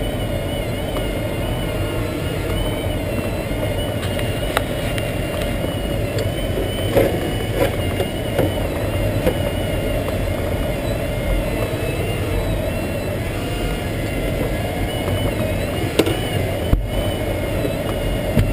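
Steady rush of air inside the cockpit of an SZD-51-1 Junior glider in flight, with a thin high tone that wavers slowly in pitch and a few faint clicks and knocks.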